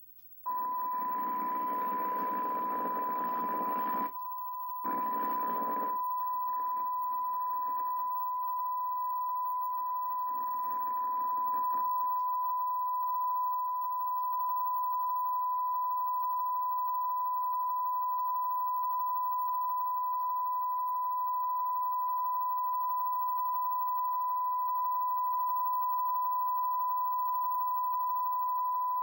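A steady, high-pitched single test tone from the white-screen ending of a VHS tape, played through a CRT television's speaker. Over the first twelve seconds it is mixed with patches of rushing hiss.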